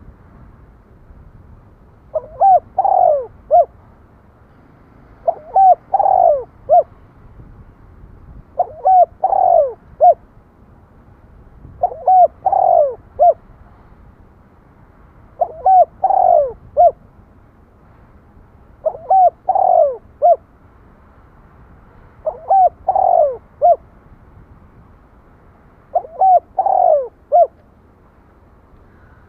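Spotted dove cooing: a phrase of a few notes, with one longer, louder note sliding down in pitch in the middle, repeated about every three seconds, eight times in a row.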